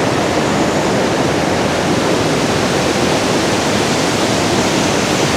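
Waterfall rushing, a loud, steady roar of falling water with no breaks.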